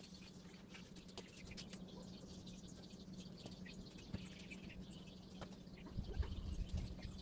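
Faint outdoor ambience: small birds chirping off and on over a steady low hum, with a low rumble coming in near the end.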